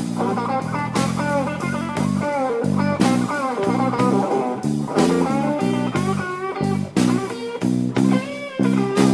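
Live slow blues from an electric guitar, bass guitar and drum kit trio. The electric guitar plays lead lines with bent, sliding notes over held bass notes and a slow drum beat.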